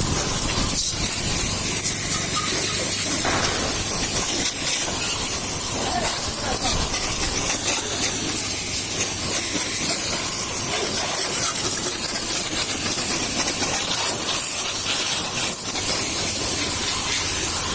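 Pressure-washer water jet spraying with a steady hiss.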